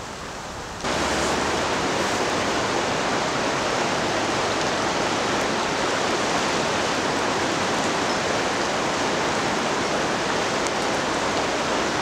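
Rushing river water in spring runoff: a steady, even rush that comes in abruptly about a second in.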